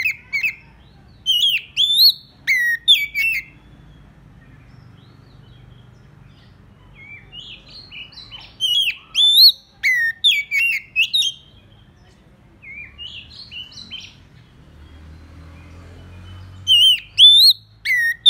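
Oriental magpie-robin singing loud whistled phrases of notes that sweep up and down, in several bursts separated by pauses of a few seconds. It is the territorial song of a caged decoy bird, used to lure rival magpie-robins.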